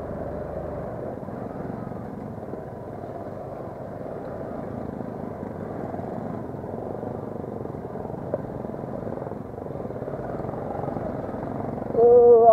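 Motorcycle engine running steadily at low speed while the bike climbs a rough gravel track, with rumble from the stony road surface.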